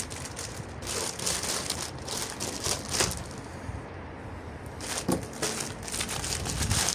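Plastic packaging crinkling and rustling in irregular crackles as a clear plastic bag is opened and a paper manual slid out. It goes quieter for a moment about halfway, then crinkles again as a bubble-wrap bag is handled near the end.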